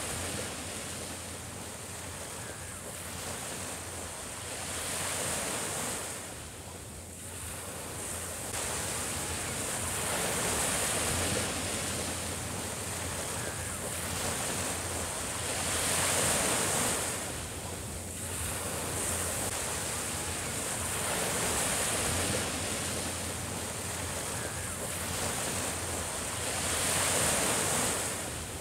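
Small sea waves breaking and washing up a sandy beach. The surf swells and ebbs about every five to six seconds.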